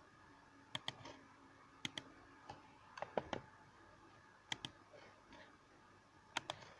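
Faint clicks of a computer mouse and keyboard, mostly in quick pairs, about five times.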